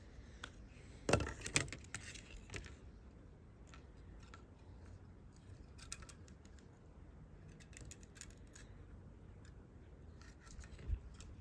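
Light clicks and taps of small tools and phone parts being handled during smartphone reassembly, with a quick cluster of sharper clicks about a second in and a single low thump near the end.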